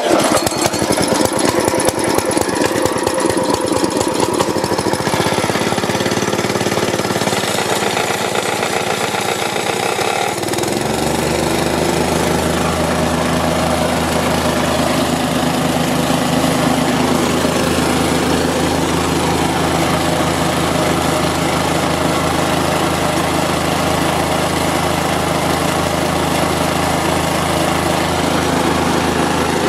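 Plate compactor's single-cylinder GX160-copy petrol engine running fast, with the plate's rapid pounding rattle, then slowing to a steady idle about ten seconds in. It is running on a new spark plug and plug cap, after a fault where it would start and then die.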